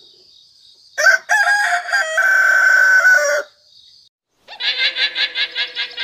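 A rooster crows once, loud, ending on a long held note. Near the end a rapid pulsing call of about five or six beats a second begins.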